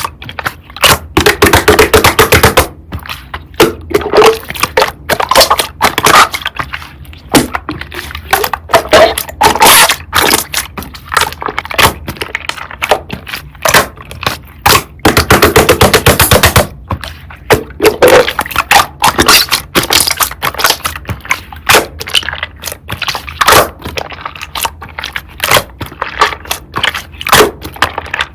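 Slime being pressed, squeezed and poked by hand, giving rapid trains of clicks and pops from trapped air. Dense clicking comes in bursts of a second or two, with single pops between them.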